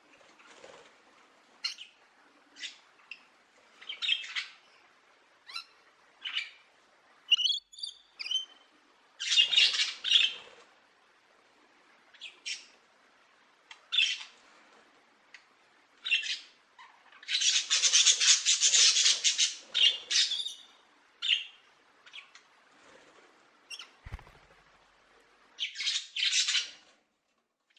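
A bird giving short, harsh calls at uneven intervals, with a brief whistled note about eight seconds in and a longer, rapid rattling call about two-thirds of the way through.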